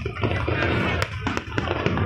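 Music playing, with scattered sharp pops and crackles of fireworks over it.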